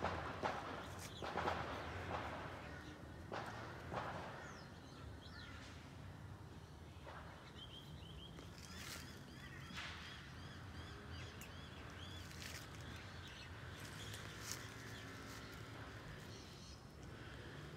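Rustling and light footsteps in grass and dry leaves during the first few seconds, then a bird calling in a quick series of short repeated chirps over a steady outdoor background.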